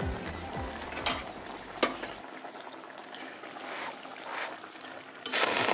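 Background music that cuts off about two seconds in, a couple of sharp clicks of utensils, then a person blowing on and slurping hot noodles in short, breathy bursts, the loudest near the end.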